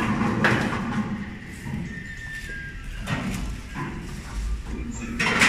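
Pool ball rolling across the table cloth with a low rumble, punctuated by a few sharp clacks and knocks, the loudest near the end.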